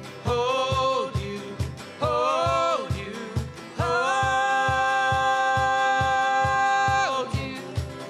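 Live acoustic band music: a singer sings two short phrases that rise into their notes, then holds one long steady note for about three seconds from about four seconds in, over guitars and a cajón keeping a steady beat.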